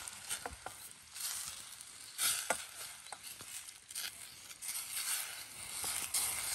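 Shrimp with lemon slices sizzling in a metal pot over a campfire, stirred with a wooden spoon. A few sharp knocks and scrapes come as the spoon hits the pot.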